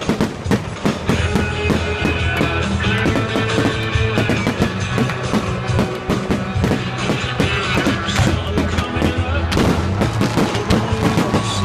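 Rock music playing loudly, with many sharp firework bangs and crackles going off among it.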